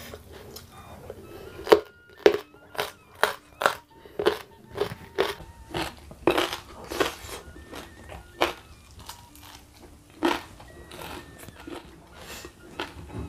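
A person chewing crisp food close to the microphone, with a series of sharp, crisp crunches coming about one or two a second.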